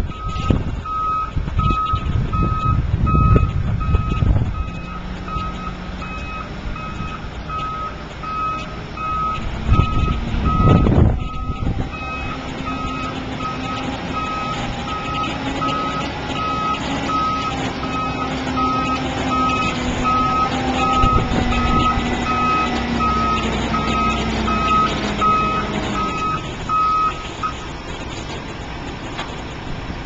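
Concrete mixer truck reversing: its back-up alarm beeps at a steady, even pace at a single high pitch over the running truck engine. The beeping stops near the end as the truck comes to a halt.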